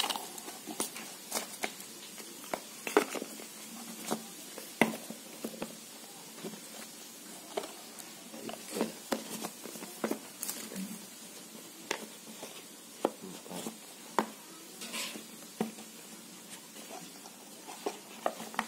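Small cardboard watch boxes being handled, opened and set down on a tiled floor: irregular taps, knocks and light rustles, a few a second.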